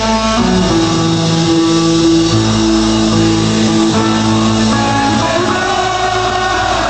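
Live rock band playing loudly: electric guitar with bass and drums, several long held notes ringing over the band.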